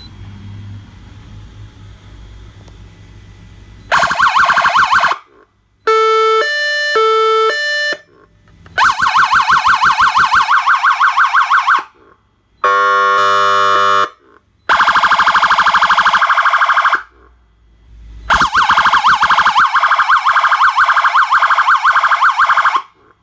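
Feniex StormPro electronic siren stepping through its tones, each cut off before the next. It plays a short fast warble, then a stepped two-note hi-lo pattern, then fast warbling yelps, a brief steady horn blast, and two more runs of fast warble. A low steady rumble comes first, for about four seconds before the siren starts.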